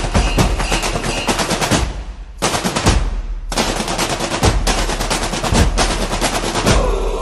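A rapid, dense rattle of sharp hits like machine-gun fire, a sound effect in the edit's soundtrack. It breaks off for over a second about two seconds in, then resumes, and a rising tone starts near the end.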